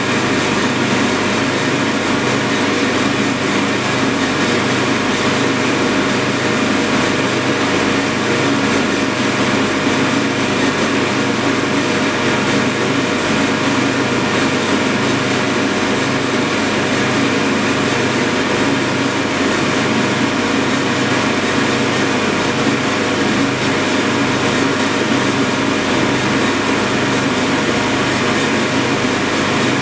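Cooling blower of an ALC68 air-cooled argon-ion laser running steadily: a loud, even rush of air with a low hum underneath.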